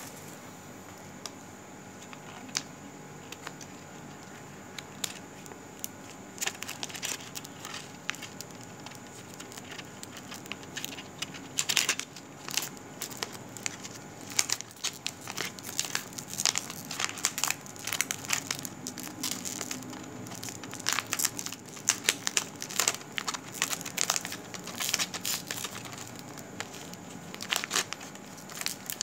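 Irregular crackling and crinkling: many sharp clicks a second, starting a few seconds in and growing denser, over a steady low background hiss.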